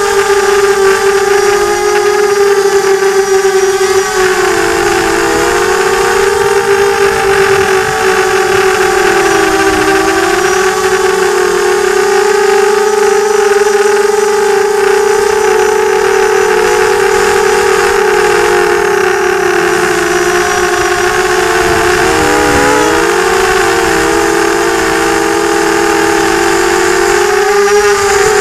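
Multirotor FPV drone's electric motors and propellers whining steadily as heard from its onboard camera, the pitch dipping briefly a few times and rising again as the throttle changes.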